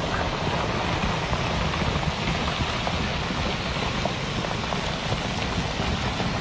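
A steady rushing noise with a fine patter of small hits throughout, like heavy rain.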